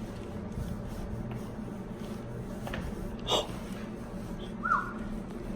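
A joint cracking once, sharply, during a chiropractic adjustment, with a fainter click just before it, and a short high-pitched squeak about a second and a half later, over a steady low hum.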